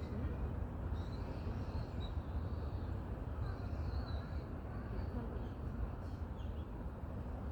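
Steady wind in forest trees with a low rumble, and faint, thin, high birdsong over it during the first few seconds, then a couple of brief chirps near the end.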